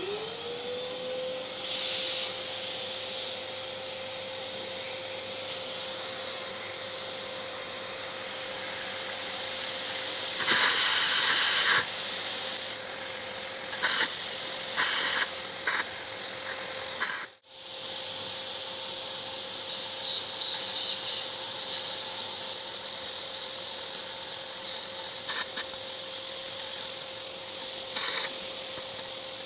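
Vacuum cleaner with a hose switched on: its motor whine spins up and then runs at a steady pitch. It cuts out for an instant about seventeen seconds in. Louder rushes of sucking hiss come as the nozzle draws at the parts, the longest about ten to twelve seconds in and shorter ones around fourteen to sixteen seconds and near the end.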